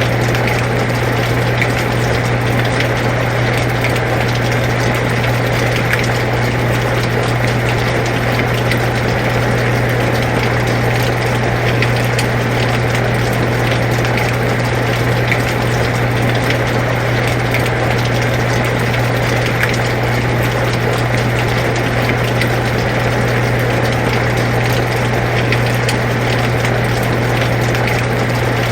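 An air conditioner running with a steady low hum under steady rainfall, with faint scattered drop ticks in the rain noise.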